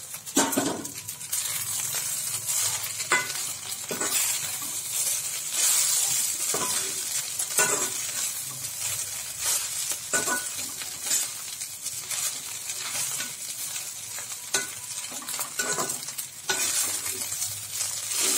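Slotted steel spatula stirring and scraping rice through a hot kadai, with repeated short scrapes against the pan over a light frying sizzle.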